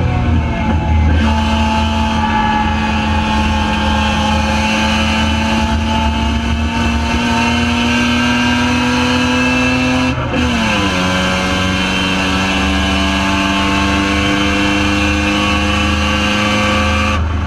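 Mazda RX-7 Spec RX7 race car's rotary engine running under power, its note climbing slowly. About ten seconds in there is a quick gear change: a brief dip, then the note drops lower and climbs again.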